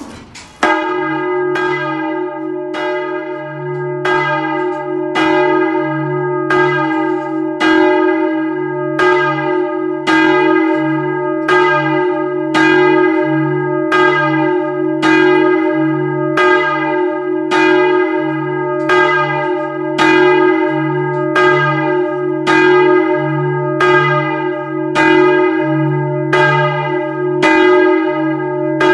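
Large old bronze church bell swinging and struck by its clapper about once a second, tolling for the prayer bell (Gebetläuten). The first strike comes about half a second in, and each stroke rings on under the next with a deep hum.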